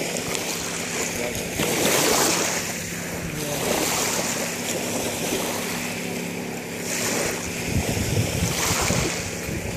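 Wind gusting across the microphone over lapping water, swelling about two seconds in and again near the end, with a faint steady low hum underneath.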